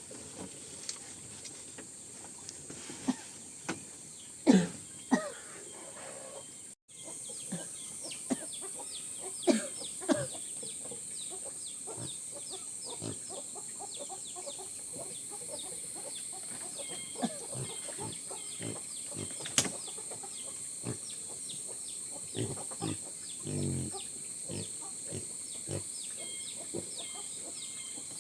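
Chickens clucking and calling, with a few low calls and scattered clicks over a steady high-pitched hiss. The sound drops out for a moment about seven seconds in.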